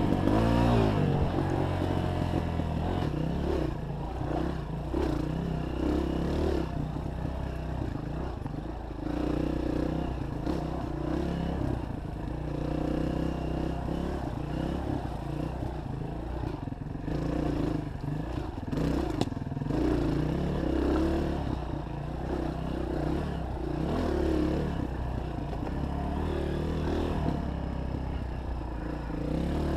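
Honda 230 dirt bike's single-cylinder four-stroke engine running at speed on a dirt trail, revving up and down with the throttle. A few knocks and rattles come from the bike over the bumps.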